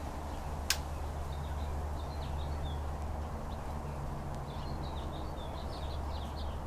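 Hummingbirds chirping: many short, high chirps scattered from about a second in, over a steady low hum. A single sharp click sounds just under a second in.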